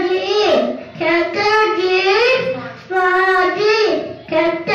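A young child singing into a handheld microphone: three drawn-out, sing-song phrases with short breaks between them.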